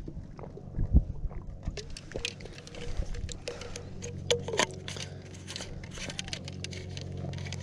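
A clear plastic water bottle handled close to the microphone: irregular clicks, taps and crackles from about two seconds in, over a low steady hum.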